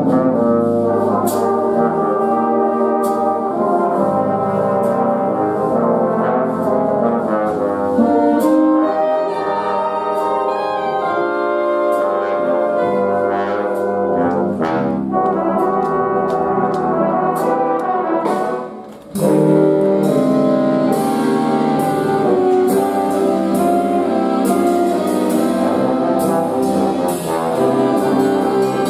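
Jazz big band playing, with a trombone soloist out front over the saxophones, brass and piano. The music breaks off briefly about nineteen seconds in, then the full band comes straight back in.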